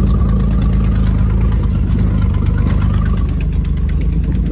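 Truck engine running steadily while the truck drives off-road through tall grass.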